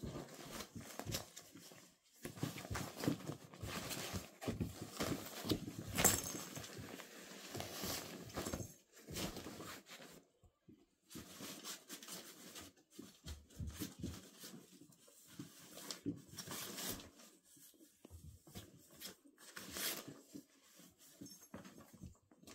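Puppies scrambling over and through a fabric cat tunnel and blankets: crinkly rustling and scratching in irregular bursts, with a few short pauses.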